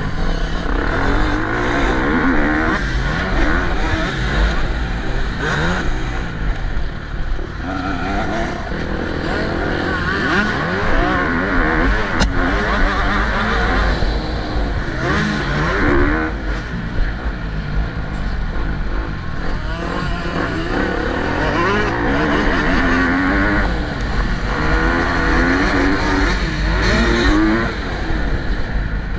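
Motocross bike engine racing, its pitch rising and falling again and again as the throttle is opened and closed, with a steady low rumble underneath.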